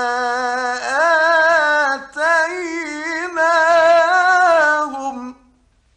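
A man's melodic Quran recitation: one voice holding long, ornamented notes that waver up and down, with a short break about two seconds in. The voice stops about five seconds in at the end of the phrase.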